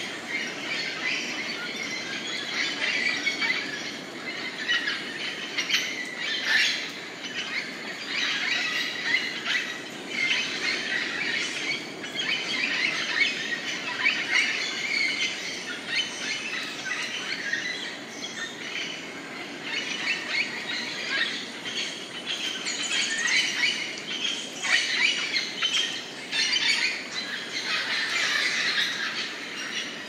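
A dense chorus of tropical rainforest birds calling over one another without a break, many short chirps mixed with squawks and squeals.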